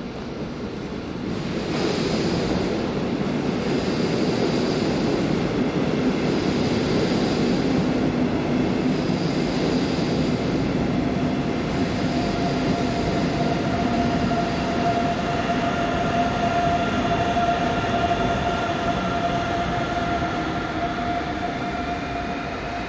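Regional double-deck train pulling out of the station, pushed by an electric locomotive at its rear. The rumble of wheels on rail swells about a second and a half in. From about halfway, the electric whine of the locomotive's drive joins it and climbs slowly in pitch as the train accelerates.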